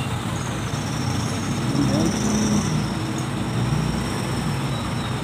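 Steady road traffic ambience: vehicle engines running with a continuous low rumble and road noise.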